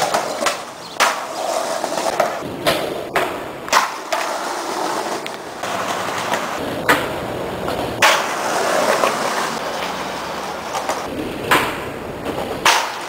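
Skateboard wheels rolling on concrete, broken by about ten sharp clacks as the board's tail pops and the board slaps down on the ground.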